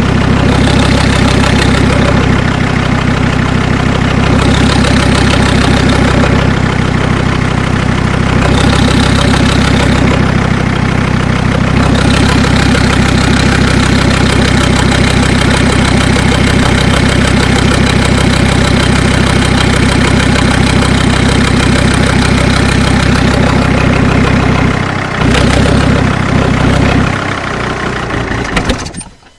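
Mercedes 2.7 CDI five-cylinder diesel engine idling steadily with a knock, which the owner takes for worn hydraulic lash adjusters (valve lifters). The sound cuts off near the end.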